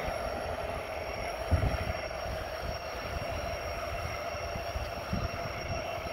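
G-scale model train running along an outdoor track, a steady mechanical hum under the rolling of its cars. Wind buffets the microphone in gusts, strongest about a second and a half in.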